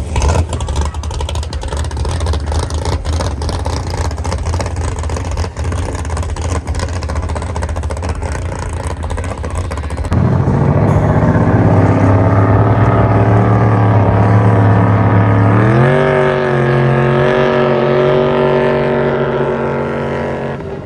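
Jet boat engine running: a rough, noisy stretch, then after an abrupt change about halfway a steady engine note that climbs in pitch about three-quarters of the way through as the engine revs up and holds there.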